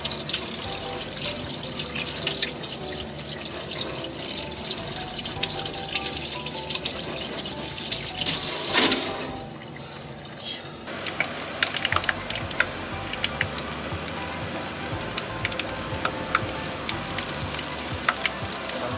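Kitchen tap running onto a hand over a steel sink, stopping suddenly about nine seconds in. After that, hot oil crackles irregularly as floured chicken pieces for karaage fry in a pan.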